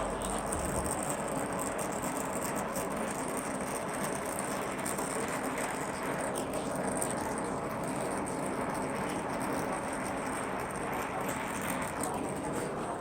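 Gas torch running with a steady hissing roar while heating copper joints for silver soldering.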